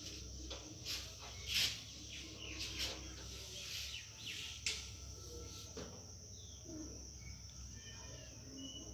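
Marker pen writing on a whiteboard: a series of short, irregular scratchy strokes, with a few faint bird chirps near the end.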